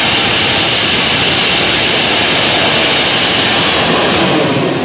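A bang fai saen, a large black-powder festival rocket, igniting and launching from its tower: a loud, steady rushing hiss that starts suddenly and fades near the end as the rocket climbs away.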